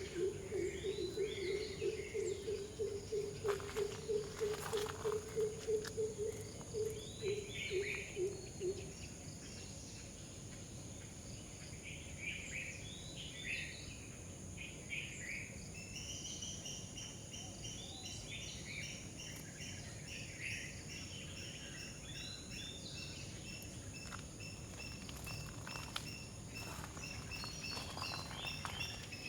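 Birds chirping and calling over a steady high insect drone. A low call pulsing several times a second runs for about the first nine seconds, and from about halfway one bird repeats a long series of short, quick notes.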